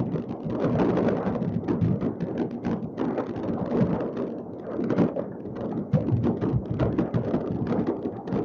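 Many fireworks going off at once across a city, their bangs and crackles overlapping into a continuous rumble, with a couple of sharper bangs about five and six seconds in.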